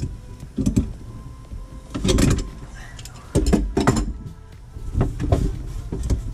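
Pliers working on a kitchen faucet's mounting hardware under a stainless steel sink: irregular metallic clicks, knocks and scraping, with handling rumble. The loudest knocks fall about two, three and a half and five seconds in.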